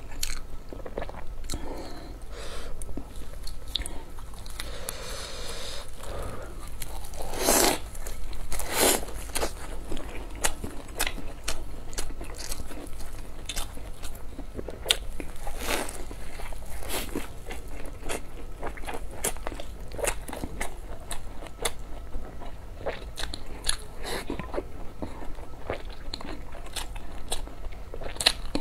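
A person biting into crisp fried flatbread and chewing, a close run of crunches and clicks, with the two loudest bites about eight and nine seconds in.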